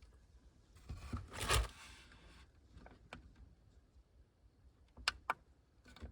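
Rustling handling noise for about a second and a half, then two sharp clicks in quick succession.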